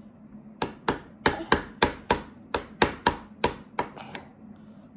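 A toddler's metal spoon knocking against the inside of a mug of soup as he stirs and scoops. About a dozen sharp taps come at roughly three a second and stop about four seconds in.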